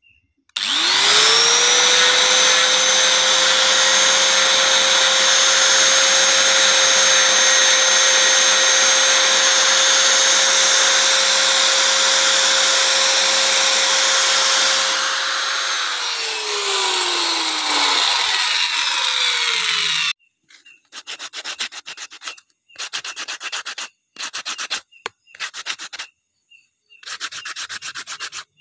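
A 100 mm, 540 W angle grinder starts up and runs at a steady whine while sanding wood, with a loud abrasive hiss. Its pitch sags after about fifteen seconds and the sound cuts off at about twenty seconds. After that come short rubbing strokes of wood being sanded, with brief gaps between them.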